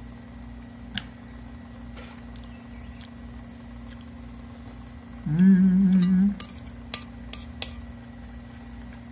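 A metal spoon clinking and scraping on a china plate while eating, with several light clicks. About five seconds in, a louder low buzzing hum that rises at its start and lasts about a second; a steady low hum sits underneath throughout.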